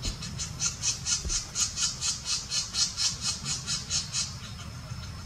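Black-naped woodpecker nestlings begging from the nest hole as the adult feeds them: a rapid, regular run of short high-pitched calls, about four a second, that stops about four seconds in.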